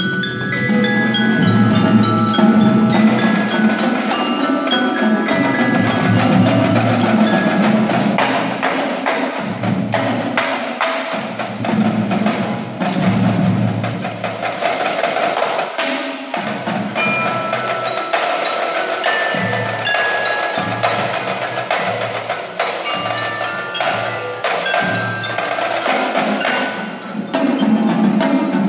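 Youth indoor drumline playing: marimbas and xylophones sound melodic mallet notes over snare, tenor and bass drums in a steady rhythm.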